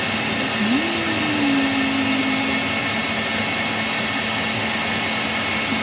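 Electric kitchen mixer running steadily, a constant motor whir as it whips the ice cream mix.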